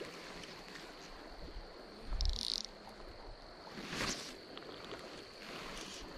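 Insects trilling: a steady high-pitched tone throughout, with a louder pulsed trill about two seconds in. A brief swish about four seconds in, as the fly line is handled.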